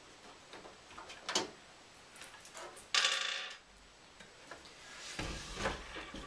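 Handling noises from a mini-ITX computer case being turned around by hand: a sharp click a little over a second in, a louder short clatter about three seconds in, then rubbing and a low rumble near the end.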